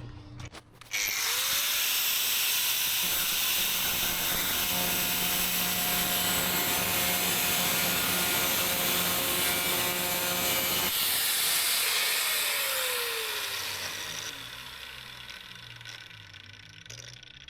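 Angle grinder switched on about a second in, its whine rising to speed, then running for about ten seconds with a loud, hissing grinding noise. It is then let off and winds down with a falling whine, fading out.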